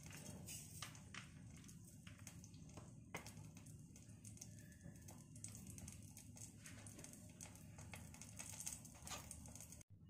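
Cumin seeds faintly crackling in hot mustard oil, a scatter of small pops and ticks throughout: the seeds spluttering as the tempering (tadka) takes.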